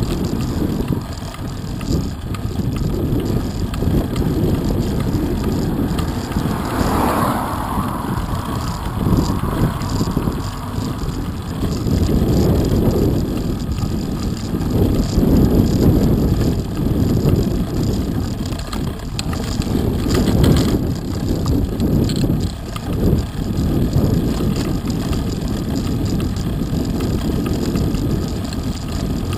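Wind buffeting the microphone of a camera mounted on a road bike, rising and falling in gusts, with tyre noise from rolling on coarse tarmac.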